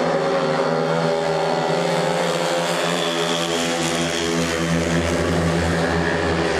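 Several speedway motorcycles racing together, their 500 cc single-cylinder methanol engines running at full throttle in a steady, continuous drone.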